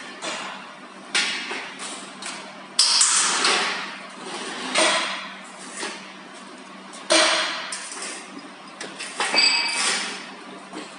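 Irregular metal clanks, knocks and short scrapes, the loudest about three and seven seconds in, a couple ringing briefly near the end, over a faint steady hum.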